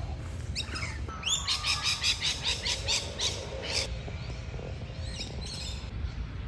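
Cockatoos calling: a quick, regular run of high squawks, about five a second, for roughly two and a half seconds, then a few scattered calls.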